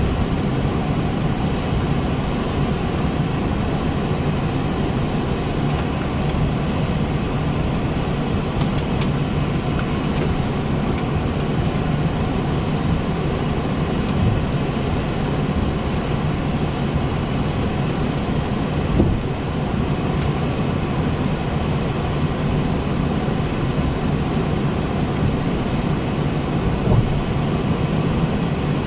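Steady cockpit noise of a Boeing 737-400 taxiing, its CFM56 engines at idle, with two light knocks in the second half.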